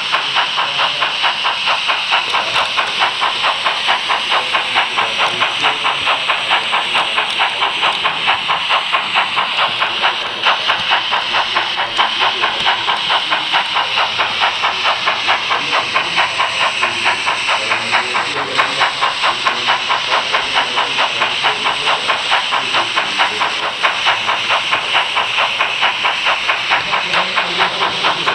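H0-scale model train running steadily along the track, a hissing running noise with an even beat about three times a second.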